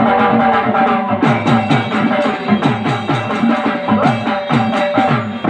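Gondi dandar folk dance music: a melodic instrument holds long notes over a quick beat of drum strokes that drop in pitch, with sharp clicking strikes between them.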